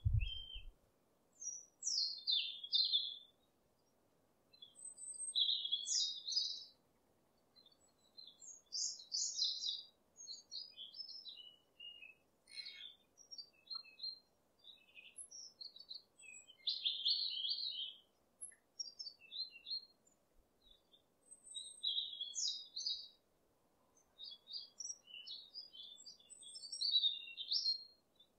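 Songbirds singing: short phrases of high chirps and trills, one every second or two, with brief pauses between them.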